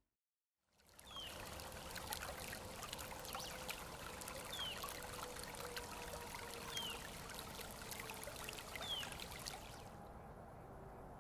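Shallow water trickling and running along a concrete channel, a steady rush with light crackle. A short, high chirp that falls in pitch sounds four times, a couple of seconds apart, and the rush grows duller near the end.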